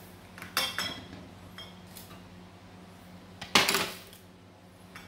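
Clinks and knocks of a glass mug and other small objects being handled on a glass-topped table: a few light clinks about half a second in, then a louder knock with a brief ring about three and a half seconds in.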